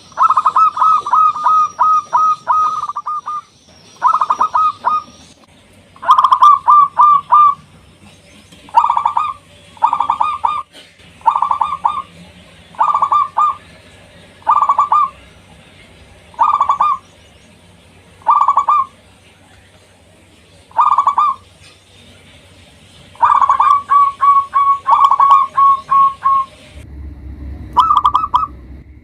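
Zebra dove (perkutut) cooing: short, rapidly pulsed coos repeated about every two seconds, with longer runs of coos at the start and near the end.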